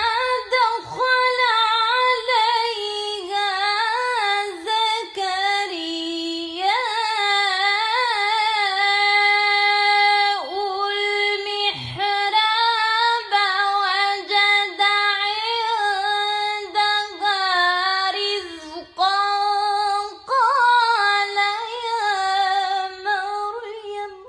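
A single high voice reciting the Quran in melodic tajweed style, holding long ornamented notes that waver and turn, with short breaks for breath. It stops at the very end.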